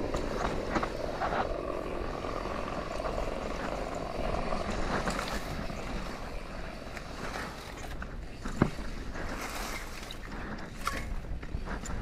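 Rocky Mountain Altitude mountain bike descending rough dirt singletrack, heard from a camera mounted on the rider: wind rushing over the microphone, tyres rolling over dirt and rocks, and the bike rattling and clicking over bumps. A sharp knock comes a little past the middle.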